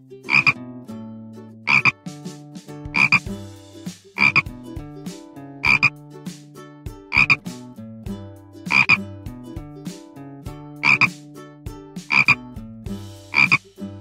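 A frog croaking over and over, about ten short calls spaced roughly a second and a half apart, each made of two or three quick pulses.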